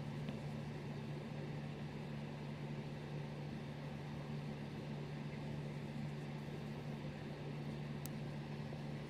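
Steady low hum with an even hiss beneath it, unchanging throughout.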